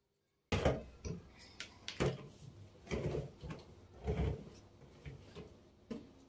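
Irregular knocks and clunks of household things being handled during cleaning, about seven in all, with a light rustle between them, starting abruptly about half a second in.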